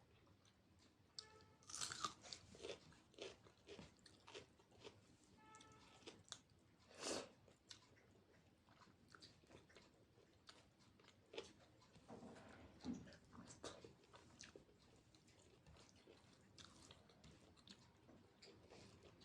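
A person chewing a home-style Indian meal close to the microphone: soft, wet chewing broken by many short crunchy bites, the loudest about two and seven seconds in.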